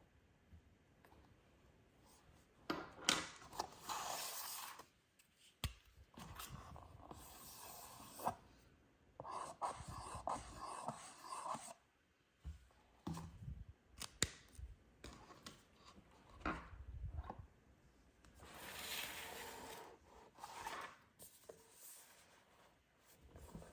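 Toy packaging being handled and opened: rustling, scraping and crinkling in several short bursts with small clicks between quiet gaps.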